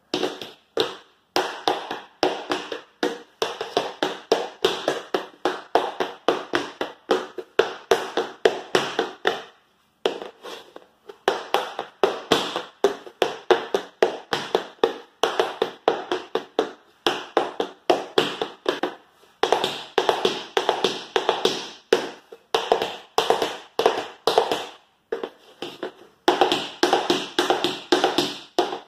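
Tap shoes' metal taps striking a wooden floor in quick, rhythmic runs of clicks: repeated 7-beat riffs (brush, scuff, heel, dig, toe, heel, heel), broken by a few short pauses. Near the end the runs change to riffles (brush, dig, spank).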